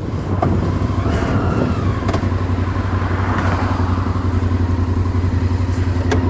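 Motorcycle engine running at low revs: a steady, evenly pulsing low rumble.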